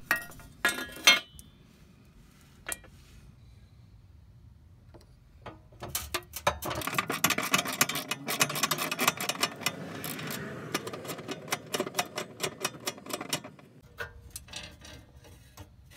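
Socket wrench on a long extension ratcheting in rapid clicks while it unscrews a rear fuel tank strap bolt, after a couple of metal clanks about a second in.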